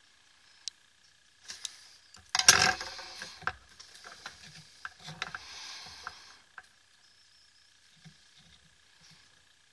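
Clicks, a clatter and rustling from handling small soldering tools and solder wire, loudest as a sharp clatter about two and a half seconds in. Over it runs a faint, steady high tone.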